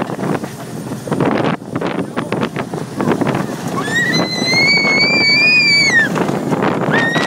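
A small child squealing with delight on a roller coaster: one long, high squeal about halfway through that drops away at its end, and a shorter one near the end. The rumble and rattle of the moving coaster car and wind on the microphone run underneath.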